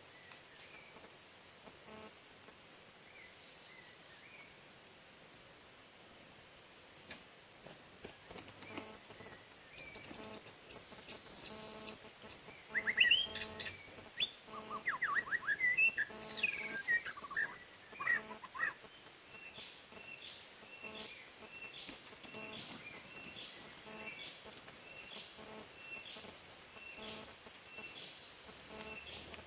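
White-rumped shama singing: about ten seconds in comes a burst of quick, varied whistles and trills lasting some eight seconds, then a string of short, evenly spaced notes. A steady high-pitched insect drone runs underneath.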